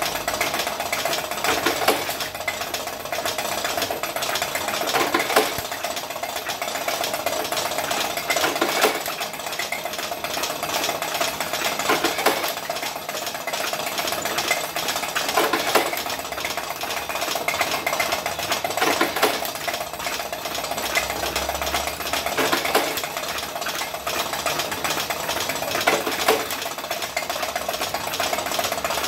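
Homemade automatic revolver-cylinder cigarette-making machine running, filling filter cigarettes with moist kretek tobacco: a fast steady mechanical clicking over a steady hum, with a louder clack about every three and a half seconds as it cycles.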